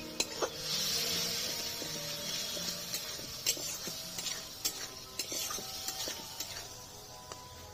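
A spice paste of onion, ginger-garlic and tomato, wetted with a little water, sizzles in a metal kadai while a metal spatula stirs and scrapes it, with scattered sharp clinks of spatula on pan. The sizzle is strongest in the first couple of seconds and weaker near the end. This is the masala being kashed, fried down with a splash of water.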